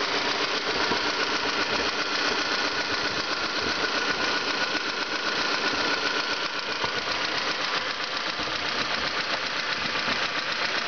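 1989 Honda Civic 1.4 GL's dual-carburettor four-cylinder engine running steadily with a rapid mechanical clatter, the weird noise the owner is showing.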